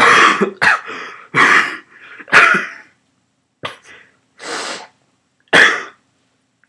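A person with a bad cough in a coughing fit: a quick run of loud, harsh coughs in the first three seconds, then a few more spaced out, the last loud one near the end.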